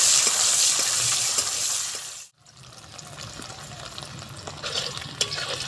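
Paneer cubes sizzling as they fry in hot mustard oil in a metal karahi, stirred with a metal spatula. The sizzle cuts off abruptly a little over two seconds in, then comes back quieter with a few clicks.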